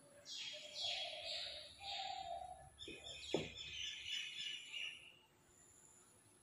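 Marker pen drawing on a whiteboard: a series of squeaky, scratching strokes over about five seconds, with a sharp tap about halfway through.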